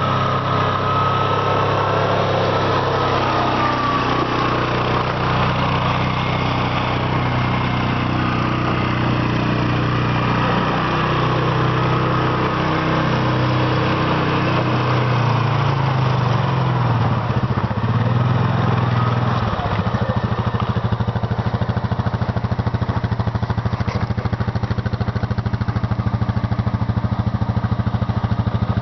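Yamaha Grizzly ATV's single-cylinder four-stroke engine running while the quad is driven, its pitch rising and falling with the throttle, then settling into a steady idle about two-thirds of the way through.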